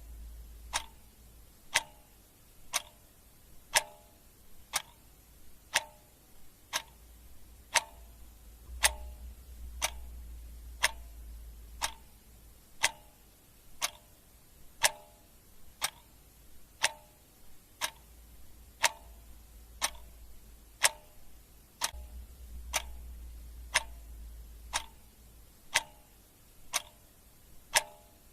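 Clock ticking steadily, about two ticks a second, alternating a louder and a softer tick, over a faint low hum that comes and goes.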